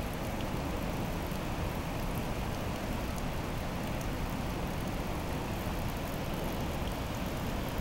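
The Passaic River at peak flow, rushing over rapids and the falls: a steady, unbroken rush of water, heaviest in the low range.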